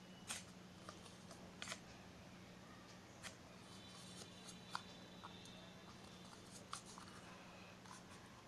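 Near silence over a low steady hum, with faint scattered clicks and rustles of a paper cup being handled as a cotton thread is pulled through a small hole in its base.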